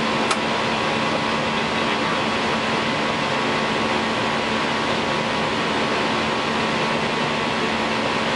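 Steady cockpit noise on an Airbus A320-200 flight deck: an even hiss with a constant low hum. A single short click sounds just after the start.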